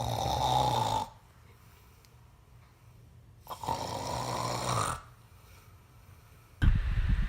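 A man snoring, one rasping snore about every three seconds with quiet breaths in between.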